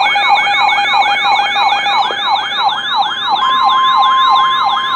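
Weather radio warning alarm: an electronic siren sweeping up and falling back about three times a second over steady tones, sounding as a new severe thunderstorm warning comes in. About three and a half seconds in, a steady single-pitched alert tone joins it.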